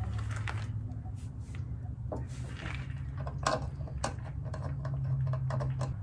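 Irregular light clicks and taps of a Subaru Sambar's fuel filler lid being handled and adjusted by hand, over a steady low hum.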